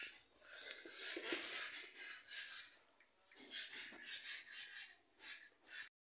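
Rubbing, scratchy handling noise in three stretches with short breaks between them, as of hands and fingers moving over a phone and its case.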